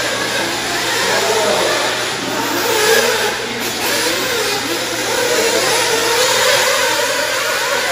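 Radio-controlled off-road racing cars running on a dirt track, their motors rising and falling in pitch as they speed up and slow down, over a steady wash of noise.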